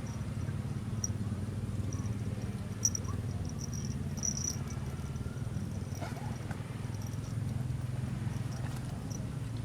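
Outdoor field ambience: a steady low rumble, with short, high chirps coming and going and a few faint clicks.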